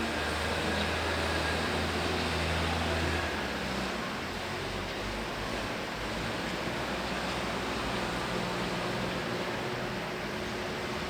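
Backhoe engine running steadily with a low hum. The engine note drops and gets slightly quieter a little over three seconds in.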